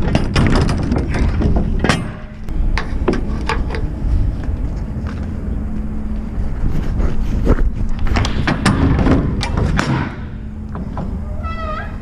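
Semi truck's diesel engine running, with a dense series of clunks and rattles over it for most of the time. Near the end the rattling stops, the running gets a little quieter, and a short wavering squeal sounds.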